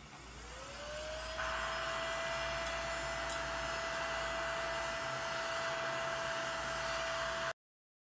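Mini desktop vacuum cleaner's small motor spinning up, its whine rising over the first second, then running as a steady whir while it sucks eraser crumbs off a desk mat. It cuts off abruptly near the end.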